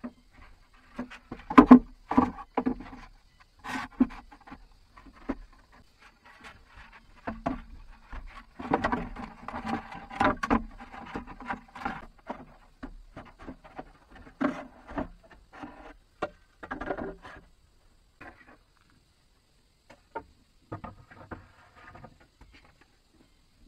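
Irregular wooden knocks and clattering in clusters, as pieces of wood or bamboo are handled and struck; the loudest knocks come about two seconds in, and they thin out near the end.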